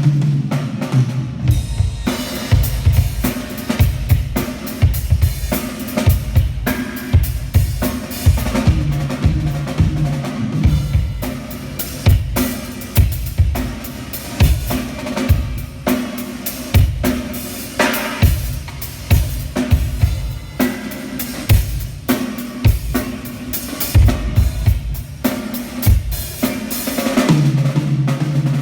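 A drum kit being played, with bass drum and snare strikes in a steady rhythm and a low, ringing drum tone near the start and the end.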